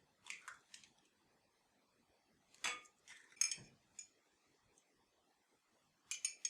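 Kitchenware clinking and tapping: a few light taps, then two louder clinks in the middle and another near the end.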